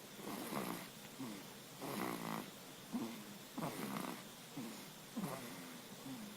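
A newborn baby, not yet a month old, snoring in its sleep: short snores with each breath in a quick, even rhythm.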